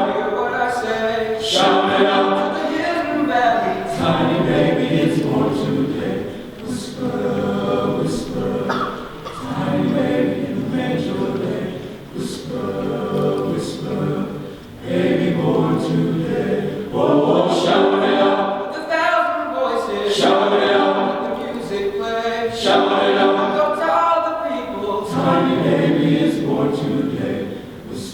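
Men's chorus singing in phrases a few seconds long, the voices swelling and briefly dipping between phrases.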